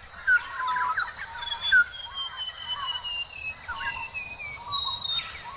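Rainforest ambience: several birds chirping and whistling, with one long slowly falling whistle through the middle, over a steady high-pitched insect drone.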